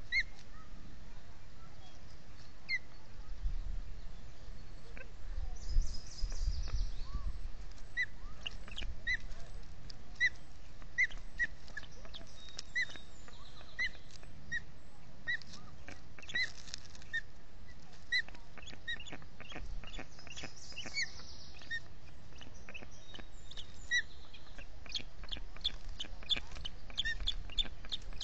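Ospreys chirping at the nest during a feeding: short, high whistled notes repeated about once or twice a second, coming faster near the end. Low wind rumble on the microphone a few seconds in.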